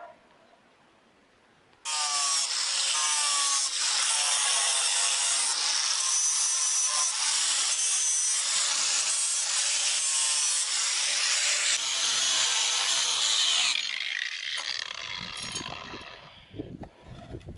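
Angle grinder switched on about two seconds in, spinning up and grinding across the face of rough pine formwork boards for about twelve seconds, then switched off and winding down near the end.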